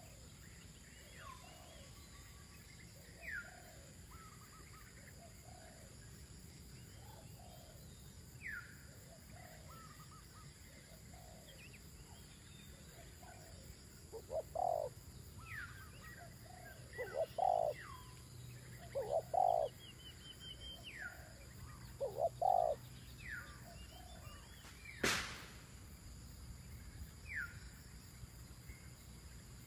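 Spotted doves cooing, the coos faint at first and then louder in runs from about halfway through. A higher, falling chirp from another bird repeats every few seconds, and one sharp click comes near the end.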